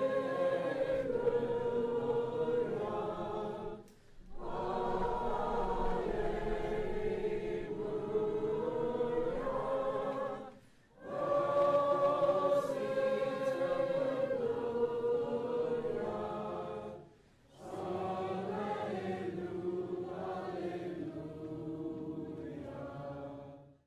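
A choir singing sustained notes in four long phrases, with a short break between each.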